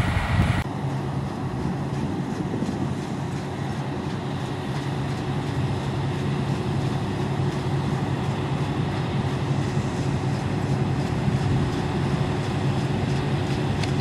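Claas Lexion combine harvester running steadily while harvesting barley: an even mechanical hum with a constant drone. A louder, deeper rumble cuts off abruptly under a second in.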